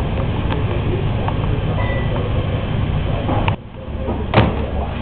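Steady low rumbling kitchen background noise. After a brief drop, a single sharp knock rings about four seconds in, from the metal door of a stainless-steel under-counter refrigerator being handled.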